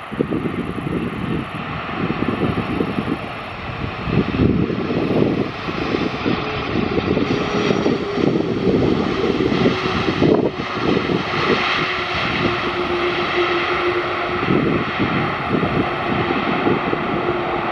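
Boeing 747-400 jet airliner landing and rolling out on the runway: a loud, gusty rumble from its four turbofan engines. A steady engine whine comes in about seven seconds in and drops slightly in pitch.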